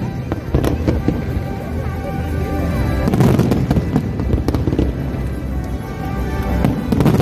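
Fireworks display with shells bursting in quick succession, and a dense volley of bangs near the end. Music plays alongside.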